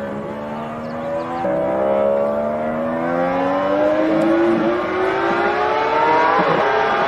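Motorcycle engine revving under load, its pitch climbing steadily through one long pull, with a sudden step up in pitch about a second and a half in.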